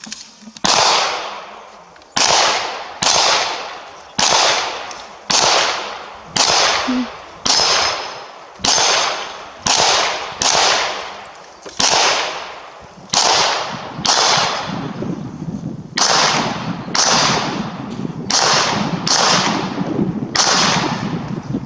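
Gunshots at a shooting range, about nineteen shots coming roughly once a second at an uneven pace, each with a long fading tail.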